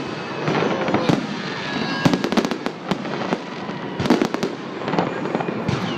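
Fireworks salute going off: a quick series of sharp bangs and crackles, thickest about two seconds in and again about four seconds in.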